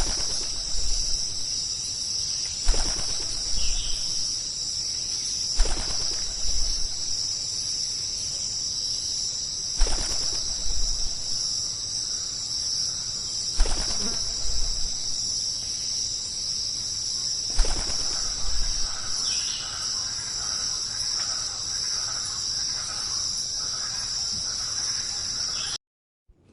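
A steady, high-pitched insect chorus, crickets or cicadas, with a brief dull thump about every four seconds.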